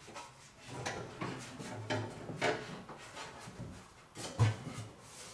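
Irregular clunks and scraping of a car's gas tank being worked up into place under the car, with a heavier knock about four and a half seconds in.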